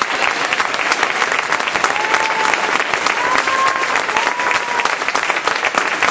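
Spectators applauding steadily in a sports hall at the end of a roller hockey match, with a few brief calls rising over the clapping.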